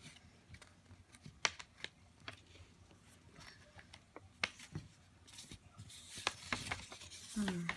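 A sheet of paper being folded by hand and the crease pressed flat on a wooden table: soft scattered taps and rustles of paper against hand and tabletop. A brief voice sound comes near the end.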